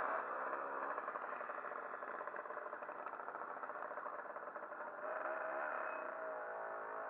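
Small moped engine running at low speed, with the engine note climbing about five seconds in.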